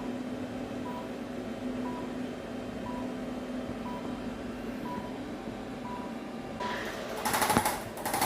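Short electronic beep about once a second over a steady low hum, the periodic timer beep of a therapy laser running. About two-thirds of the way in, a loud rapid mechanical rattling starts.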